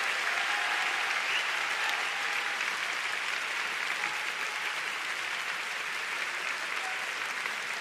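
Large arena audience applauding steadily, easing off slightly toward the end, with a few faint voices calling out.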